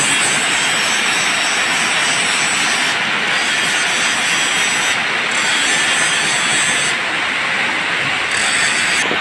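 Electric angle grinder running against steel, a loud steady rush with a high-pitched edge that drops out briefly a few times.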